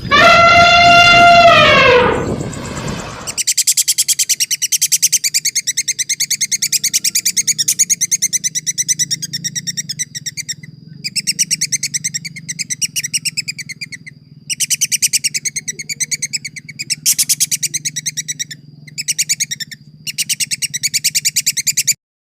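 A loud drawn-out animal call that rises and then falls in pitch for about three seconds. It is followed by a bird's rapid, high-pitched chirping in bouts of a few seconds, separated by short pauses.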